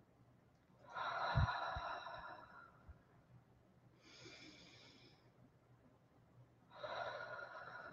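A woman's slow, deep chest breaths, done as a guided breathing exercise. There is a louder breath about a second in and again near the end, with a softer one in between.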